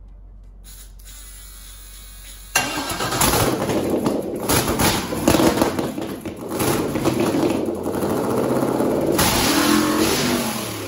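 Aluminum 5.3 L LS V8 on an engine stand catching suddenly about two and a half seconds in, then running loud while its throttle is worked by hand, so it revs up and down in surges before starting to die away near the end.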